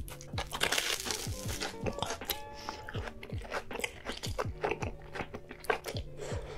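Crunchy biting and chewing of deep-fried battered corn dogs coated in cheese sauce, with the loudest crunch about a second in. Background music with a steady deep beat plays under it throughout.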